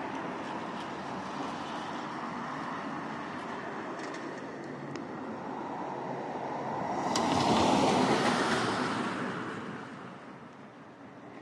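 A vehicle passes on a wet street: a rush of tyre and engine noise that swells to its loudest about eight seconds in and fades away, with a short sharp tick near the peak, over a steady background hiss.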